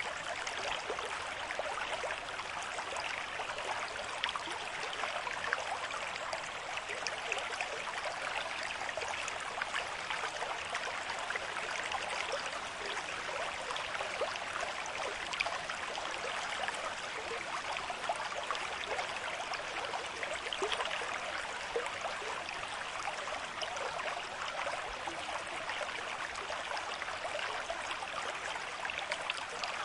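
Small river running over rocks at a moderate flow: a steady rushing and babbling with many small splashes.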